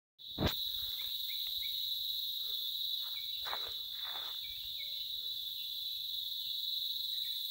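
Steady, high-pitched drone of insects, with scattered short bird chirps over it and a brief thump about half a second in.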